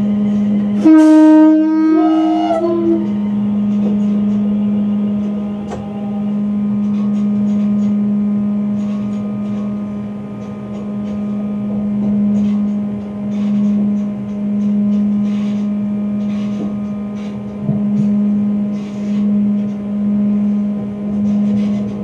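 Class 350 Desiro electric train's horn sounded about a second in: a two-note blast of under two seconds, the second note higher, given as the warning at a whistle board. Under it runs a steady hum from the train in the cab.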